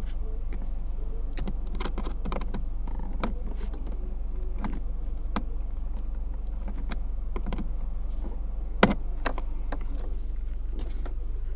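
Scattered clicks and taps of plastic console trim and its retaining clip being handled and pressed into place, with one sharper click a little before the end, over a steady low hum.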